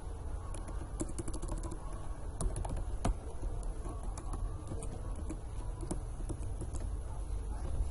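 Computer keyboard being typed on: a quick run of keystrokes about a second in, then scattered single key presses, over a steady low hum.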